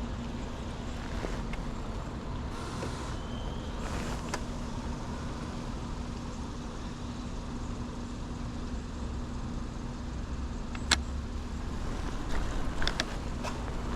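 Bicycle riding on wet pavement: a steady low road rumble with a faint hum. Near the end there is one sharp knock, then a few quick clicks.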